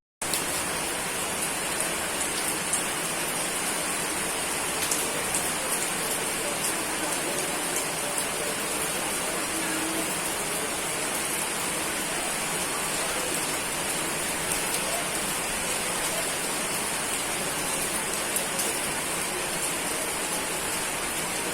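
Steady rainfall, an even hiss of rain on surfaces with scattered individual drop ticks. It cuts out for a split second at the very start, then runs on unchanged.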